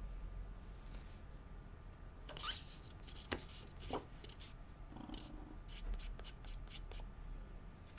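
A thin plastic magnetic paper-like screen protector sheet being handled and flexed, with a rising swish, two sharp plastic clicks and then a quick run of light taps and clicks.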